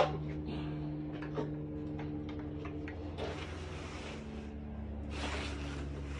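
Cloth rustling in two stretches, the second from about five seconds in, as the strawman prop's shirt with its straw-fringed cuffs is handled. A sharp knock comes right at the start, and a steady low hum runs underneath.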